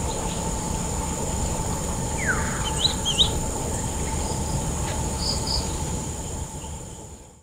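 Rainforest insects giving a steady high-pitched buzz, with a low rumble underneath. A bird gives a falling call and two quick squiggly calls about two to three seconds in, then two short high notes near five seconds, before the sound fades out.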